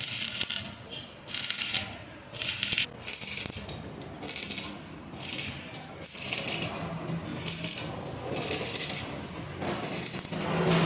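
Repeated short scraping strokes with light metallic clinks, about one stroke a second, typical of hand work on a metal motor part.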